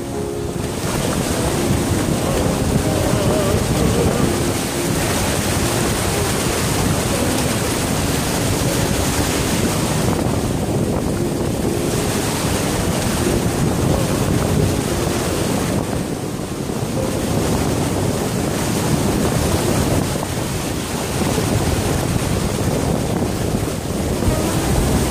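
Sea surf breaking and washing up a sandy beach close by, a steady rushing hiss of foam that eases briefly around ten and sixteen seconds in, with wind buffeting the microphone.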